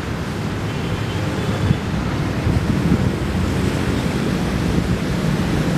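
Wind buffeting the microphone over the low rumble of a distant CC 201 diesel-electric locomotive pulling out with its train, the rumble slowly growing louder.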